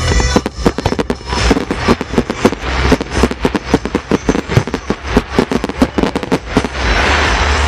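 Fireworks display: a rapid, continuous barrage of launches and shell bursts, thick with the crackling of crackle stars. A hissing crackle swells near the end.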